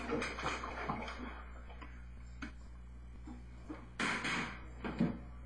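Light clicks and knocks of objects being handled on a table, with a short rustle about four seconds in, over a steady low electrical hum.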